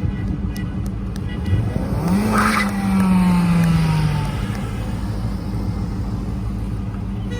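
A motor vehicle passes close by over steady traffic rumble. Its engine note rises about two seconds in and then slides down in pitch as it goes past, with a brief rush of noise.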